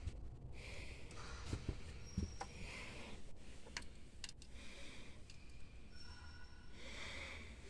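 Quiet room tone inside an aircraft cabin: a low steady rumble with a few faint clicks and short soft rustles, from a phone being handled while its holder walks through the cabin.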